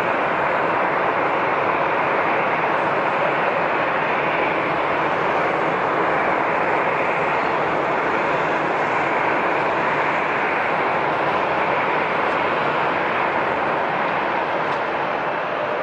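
Airliner jet engines running, a loud steady rush of noise that holds without rising or falling.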